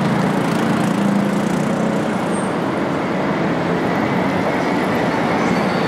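Steady city street noise of road traffic, with the low hum of a vehicle engine fading over the first couple of seconds.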